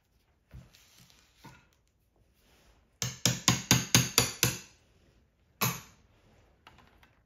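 Hammer blows on a steel pin punch driving a part out of the Type 9 gearbox's selector mechanism, metal on metal: a quick run of about eight strikes halfway through, then one more a second later.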